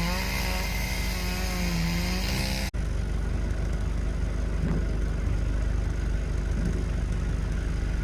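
An engine running with a wavering pitch. After a sudden break about three seconds in, it gives way to a steady low rumble.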